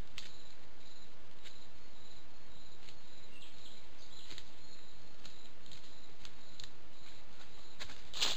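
A fallow deer buck grazing: faint, scattered crisp clicks of its bites tearing at grass, a few a second, over the steady hiss of a trail camera's microphone.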